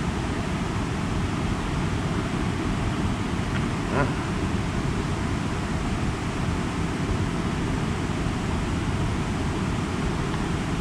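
Steady rushing noise of a waterfall, with a single click about four seconds in.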